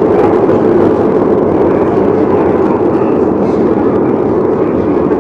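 Chatter of a crowded room, slowed down and heavily reverberated into a steady, low, blurred wash of voices with no words to make out.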